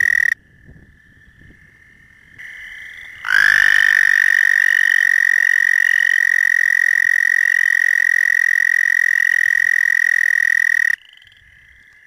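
American toad trilling: a long, steady, high musical trill. One call ends within the first half-second, a fainter trill carries on in the gap, and a second, louder trill starts about three seconds in and holds for about seven and a half seconds before stopping abruptly.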